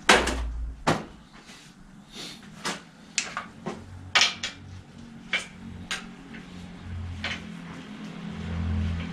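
Irregular sharp clicks and knocks of metal parts being handled on a bicycle clamped in a repair stand, about a dozen in all, with the loudest right at the start.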